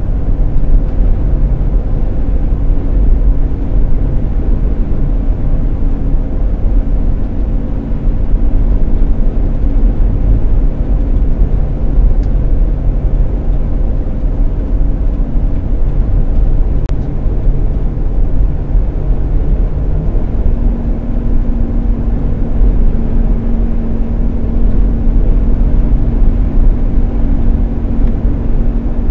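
A 16-foot moving van towing a car carrier, cruising on the highway, heard from inside the cab: a steady low rumble of engine and road noise with a constant engine drone. The engine note shifts about two-thirds of the way through.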